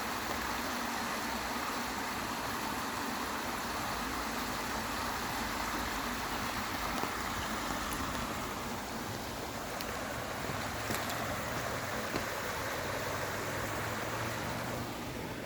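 Steady rushing of creek water over a low waterfall, with a few faint clicks.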